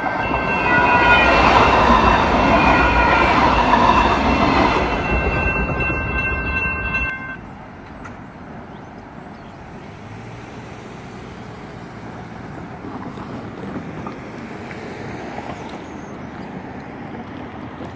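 Sacramento light rail train (CAF light rail vehicles) rumbling through a grade crossing, with steady multi-tone ringing over it from the electronic crossing bells. About seven seconds in, train noise and ringing cut off suddenly, leaving quieter outdoor background.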